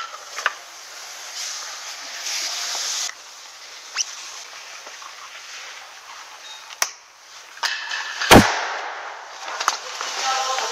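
A hiss that stops abruptly about three seconds in, scattered sharp clicks and knocks, and one loud bang about eight seconds in.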